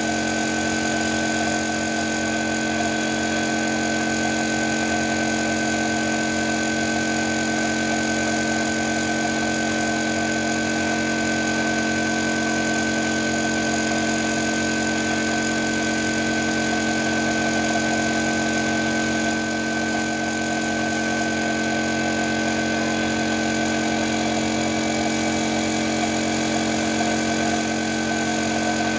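Air compressor running steadily, a constant hum with a high whine, under the hiss of a compressed-air spray gun spraying PU sealer.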